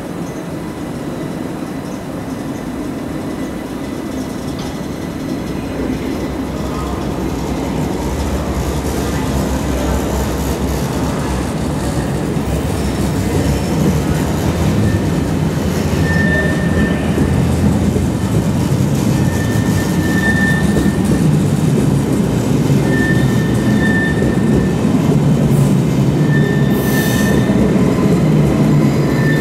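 ICE 1 (class 401) high-speed train pulling slowly out of the station, its carriages rolling past with a rumble that grows steadily louder as the rear power car draws near. Short high-pitched squeals recur every few seconds from about halfway through.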